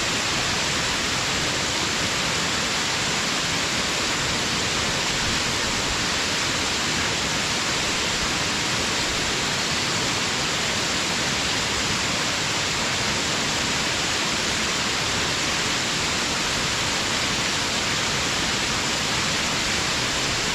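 Waterfall at a small farmland flood-control dam: falling water making a steady, unbroken rush, strongest in its hiss.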